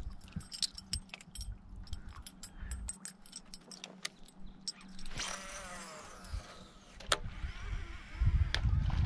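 Fishing tackle clicking and rattling, then a fishing reel's spool whirring as line pays out on a cast, falling in pitch as the spool slows. A low rumble near the end is the loudest sound.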